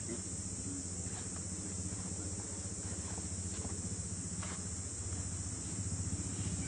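Steady high-pitched insect drone, with a low steady hum beneath it and a few faint clicks scattered through.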